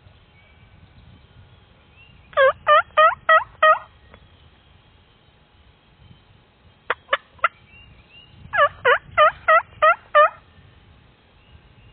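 Turkey yelping: a run of five loud yelps, then four short sharp clucks, then a second run of six or seven yelps near the end.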